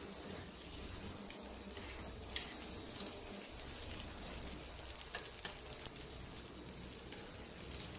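Chicken breast sizzling steadily in melted butter and garlic in a frying pan on moderate heat, being seared, with a few light clicks of a utensil against the pan as the pieces are moved around.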